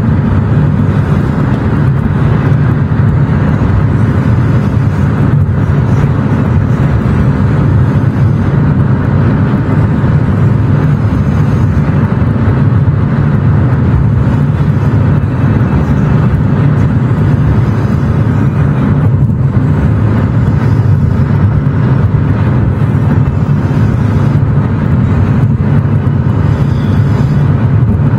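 Car driving at a steady speed, with a constant low road rumble.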